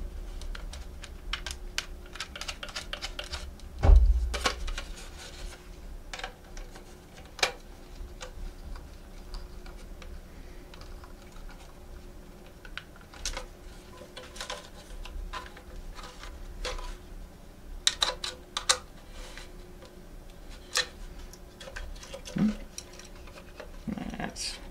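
Small plastic clicks and taps from handling and fitting the parts of an N gauge model turntable motor kit, irregular and scattered, with a dull thump about four seconds in.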